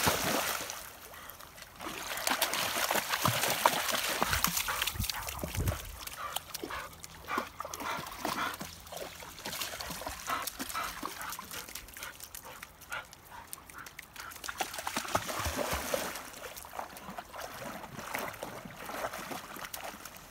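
Dogs wading and splashing in shallow river water, with a dog whimpering now and then.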